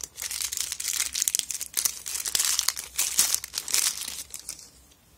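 Crinkly blue plastic wrapper being crumpled and pulled open by hand to free a camera battery pack: a dense run of crackling that dies away about four and a half seconds in.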